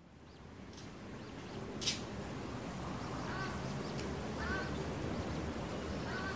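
A duck quacking three times, short calls spread over the second half, over a steady outdoor background that fades in at the start. A single sharp click about two seconds in.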